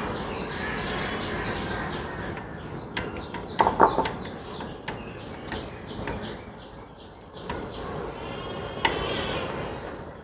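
Chopsticks stirring raw blood pudding (tiết canh) mixture in a steel tray, with light clicks of the chopsticks against the metal. A short animal call comes about four seconds in.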